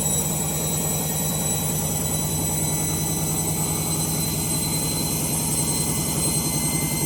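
Candy Grande Vita 7 kg front-loading washing machine on a high-speed final spin: a steady drone with a fast, even rumble underneath. The owner takes the noise as a sign that the drum bearings are on the way out.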